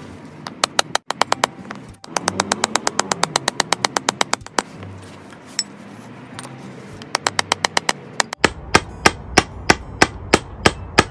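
Hammer tapping a metal punch held against the base of an upturned ceramic teacup to chip a drainage hole through it. Light, quick taps come in runs of about eight a second, then slower, harder blows about three a second near the end.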